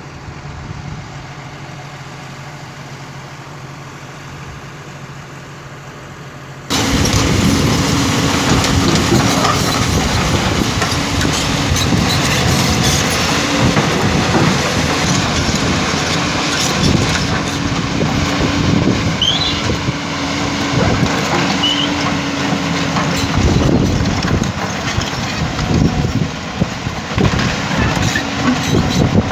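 JCB backhoe loader's diesel engine running steadily. About seven seconds in, the sound cuts abruptly to a much louder, noisier stretch of the machine at work, with a steady hum and irregular clatter.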